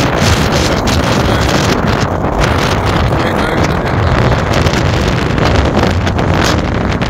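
Strong wind buffeting the microphone: a loud, deep rush of noise that swells and dips a little with the gusts.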